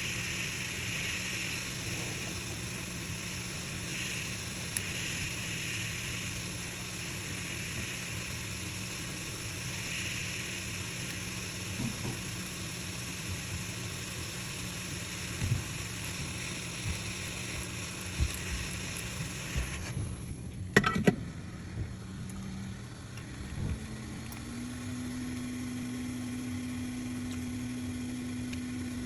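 Steady hiss and low hum of running repair-bench equipment, with a few small tool clicks. The hiss cuts off about two-thirds of the way through, and a steady low hum starts soon after.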